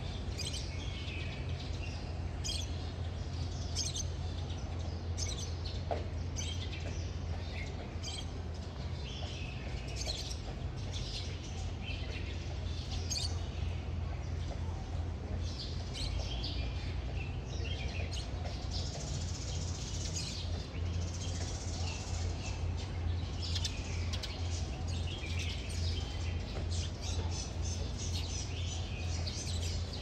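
Birds chirping: many short, high chirps scattered irregularly, over a steady low hum.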